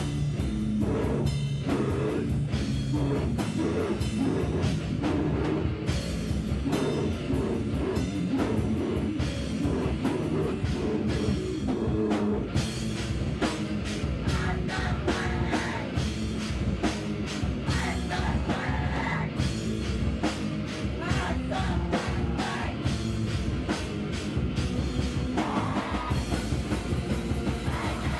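Live band playing loud, fast heavy rock: rapid drum kit hits and guitar, with singing.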